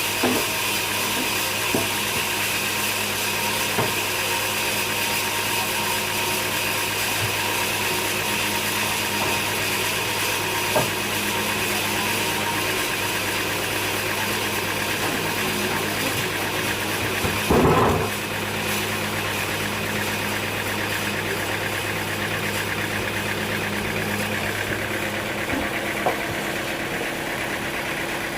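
An engine running steadily at an even pitch, with a few light knocks through it and one louder clatter a little past the middle.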